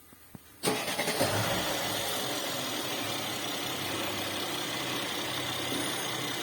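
Mercedes-Benz M276 V6 engine starting about half a second in, catching with a burst and then running at a steady idle. This is the start-up after its intake camshaft adjuster and chain tensioner were replaced to cure a strange noise on starting.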